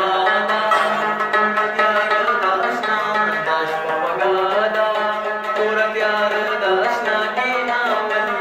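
Afghan rubab being played, plucked strings ringing over a steady low drone, with a man singing a Pashto song along with it.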